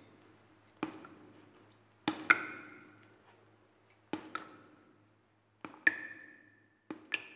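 Sharp clanks that ring briefly, coming roughly every one and a half to two seconds, several of them in quick pairs.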